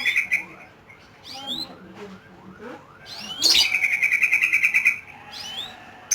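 Lovebird ngekek: a fast, chattering trill. A brief tail of it comes at the start, and a louder burst of about a second and a half comes about halfway through, with short rising chirps in between.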